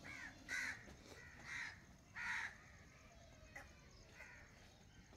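A crow cawing: four short, harsh caws in the first two and a half seconds, the last the loudest.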